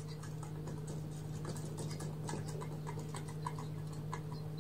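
Small, irregular clicks and light ticks of a wire being fastened onto the terminals of a Commax intercom handset unit by hand, over a steady low hum.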